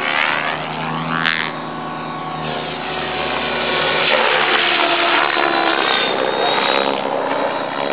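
Electric 700-size RC helicopter (Thunder Tiger e720) flying aerobatics: steady whine of the electric motor and rotors with a whooshing rotor-blade sound, a rising whine about a second in, then louder as it passes close.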